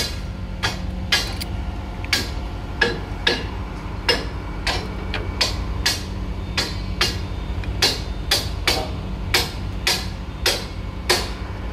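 Hydraulic bolt-tightening pump running with a steady low hum, under a run of sharp metallic clicks or knocks about two a second.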